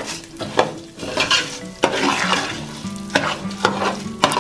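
Raw rice frying in hot oil in a pot, sizzling as it is stirred in repeated scraping strokes about twice a second: the rice is being browned in the oil before the tomato purée goes in, as for Mexican red rice.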